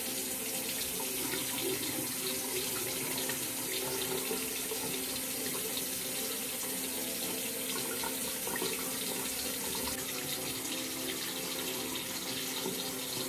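Bathroom sink faucet left running, a steady rush of water into the basin that starts abruptly and continues without a break.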